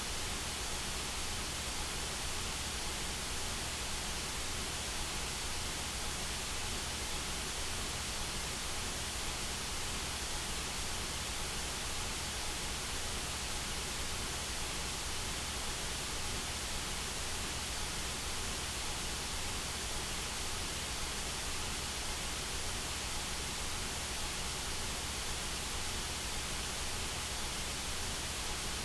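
Synthetic white noise: a steady, even hiss across all pitches, unchanging throughout.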